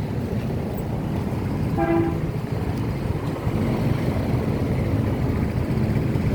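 Street traffic rumbling past, with one brief vehicle horn toot about two seconds in.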